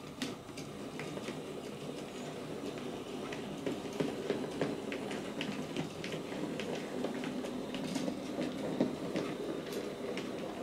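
OO gauge model Andrew Barclay 0-4-0 saddle tank locomotive running past with three open wagons: a steady motor and wheel hum with rapid clicking of wheels over rail joints and points. It grows louder as the train nears and eases off as it leaves.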